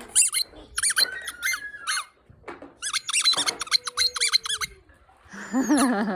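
Squeaky dog toy squeaking rapidly in three bursts as a Great Dane puppy chews it. A short lower-pitched voiced sound follows near the end.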